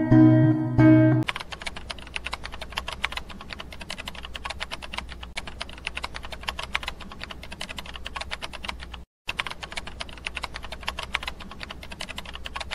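Computer-keyboard typing sound effect: a fast, dense run of key clicks with one brief break about nine seconds in. It follows a chiming musical tone that lasts about the first second.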